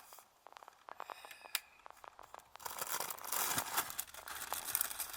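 Scattered faint clicks, then from about two and a half seconds in a rustling, tearing noise that fades near the end.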